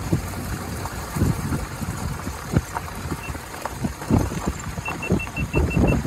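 Wind buffeting the microphone in irregular gusts over a low rumble. Near the end, a quick run of about seven short, high-pitched beeps.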